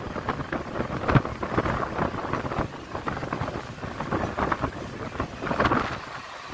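Running noise of an electric local train heard from inside the coach at an open door: a steady rumble with irregular clattering knocks from the wheels and coach, and wind buffeting the microphone.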